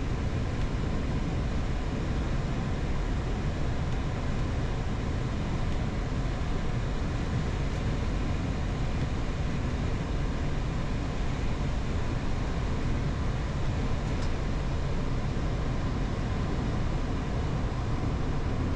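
Steady rush of airflow and engine noise inside a Boeing 737-8 MAX cockpit on short final approach, below minimums. It is an even, deep rush that holds level throughout, with no touchdown thump.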